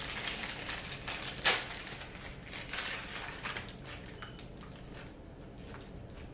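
Plastic candy wrapper crinkling and crackling as it is torn open, with one sharp crackle about a second and a half in, then fainter rustles and ticks as the candy strands are pulled out.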